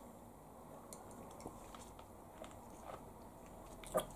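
Faint mouth sounds of people swallowing a sip of fizzy soda, with a few soft, scattered clicks.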